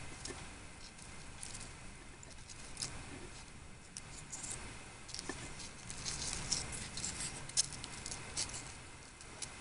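Faint paper crinkling and light, scattered ticks from a paper towel being handled and wooden chopsticks moving tiny fried potato sticks on a small ceramic plate. The ticks come closer together about six to eight seconds in.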